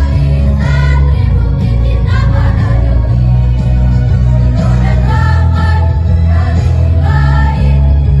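Choir singing a march song in unison over loud backing music with a strong, steady bass line.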